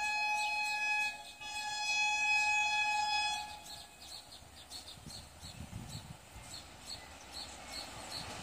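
Horn of the oncoming Geetanjali Express sounded in two steady blasts, the first ending about a second in and the second stopping about three and a half seconds in. It is followed by the low rumble of the train approaching at speed, which grows toward the end, with a run of regular high ticks over it.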